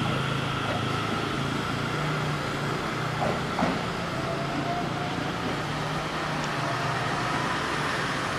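Seibu 30000-series electric train pulling away along the platform, its traction motors giving a steady low hum and a steady higher whine, with a fainter tone rising in pitch midway as it gathers speed. Two small clicks a little over three seconds in.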